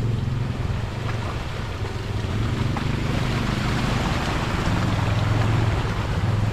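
Small automatic ATV engine running steadily as the quad pulls off at low speed under light throttle, with a steady rushing noise over it.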